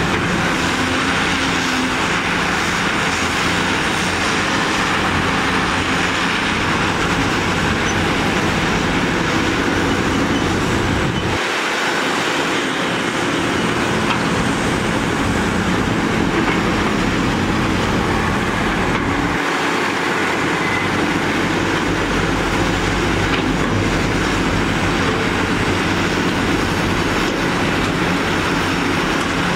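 Hitachi hydraulic excavator's diesel engine running steadily under load as it digs soil and loads a dump truck. Its low rumble drops away briefly twice, about a third and two thirds of the way through.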